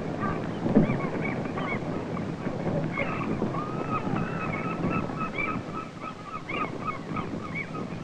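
A flock of seagulls crying, many short overlapping calls throughout, over a steady background of wind and sea noise.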